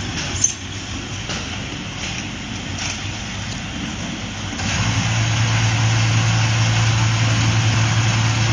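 Petrol station fuel dispenser's pump motor switching on nearly five seconds in and running with a steady low hum. Before that there is a brief sharp click and a steady background noise.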